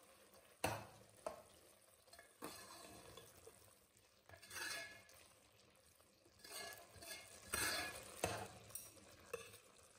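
A metal ladle stirring minced beef keema in an aluminium pot: faint, irregular scrapes against the pot as the keema is stir-fried to dry off its liquid.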